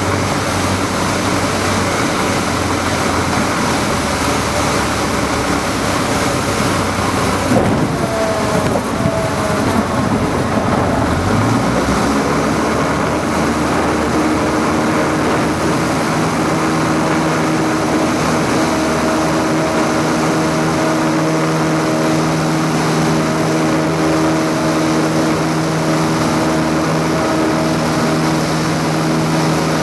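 Single-engine light aircraft's piston engine heard from inside the cockpit with airflow noise: running at low power on short final, a brief jolt as the wheels touch down about eight seconds in, then the engine rising to full power a few seconds later and holding steady for the touch-and-go takeoff and climb.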